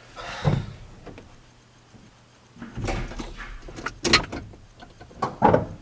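Irregular scraping and knocking as a hood release cable is jammed through the firewall of a pickup truck, a handful of short knocks and scrapes with quiet gaps between.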